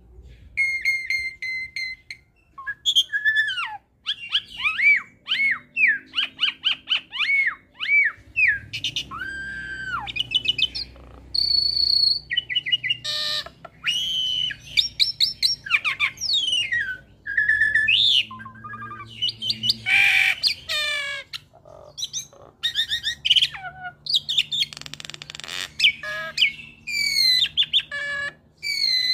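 Caged hybrid jalak (Asian pied starling × jalak Nias cross) singing a varied chattering song: clear whistles, rising and falling chirps, fast trills and a few harsh rasping bursts.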